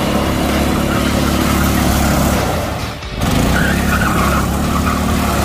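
Homemade go-kart's small engine running steadily as it drives. After a break about three seconds in, the engine runs on with a wavering high squeal over it as the tyres squeal through a turn.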